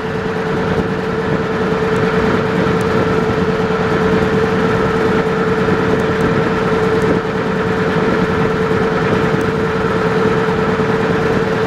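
Small motor boat's engine running at a steady cruising speed, heard from on board: an even drone with a constant hum that does not change.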